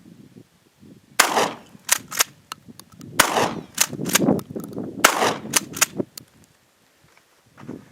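Winchester Model 1300 12-gauge pump-action shotgun firing bird shot three times, about two seconds apart. Each shot is followed by quick clacks of the pump action being racked.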